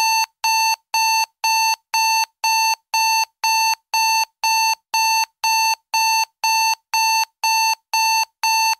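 Electronic timer alarm beeping: a steady run of identical high-pitched beeps, about two a second, starting the moment the countdown reaches zero to signal that time is up.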